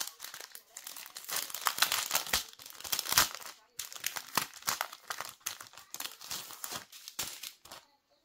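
Thin plastic bags of diamond-painting drills crinkling and rustling as they are handled and folded by hand. The crinkling stops near the end.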